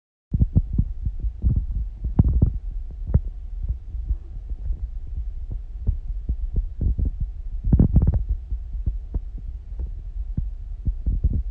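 Domestic cat purring close to the microphone: a steady low throbbing rumble with rapid pulses, swelling louder about eight seconds in.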